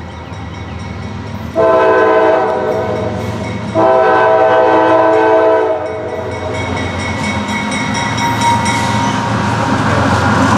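Air horn of a CSX GE CW44AC (AC4400CW) diesel locomotive sounding two long blasts, starting about one and a half seconds in and ending about six seconds in: the warning for a grade crossing. After the blasts, the rumble of the locomotives' diesel engines and wheels grows louder as the locomotives draw near.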